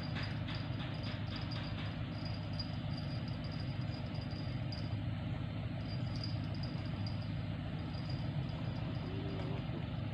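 Spinning fishing reel being cranked as a fish is brought in. Its ticks come about four times a second for the first two seconds, then grow fainter and uneven. A steady low rumble runs underneath.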